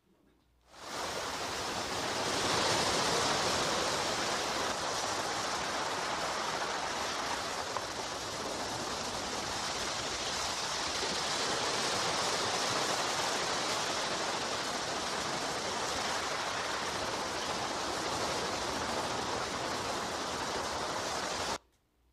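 Recorded ocean surf, a steady wash of noise that starts suddenly about a second in and cuts off abruptly near the end, as the soundtrack of a beach video.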